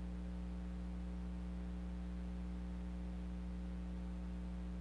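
Steady low electrical mains hum with several evenly held overtones over faint hiss, unchanging throughout.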